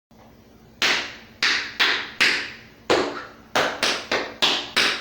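Metal taps on tap shoes striking a floor: about ten sharp taps in an uneven dance rhythm, each ringing briefly.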